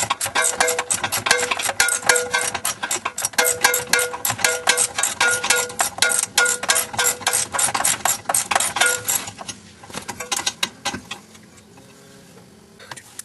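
Ratchet wrench clicking rapidly as a loosened exhaust bolt is backed out. The clicking stops about nine seconds in, leaving a few scattered clicks.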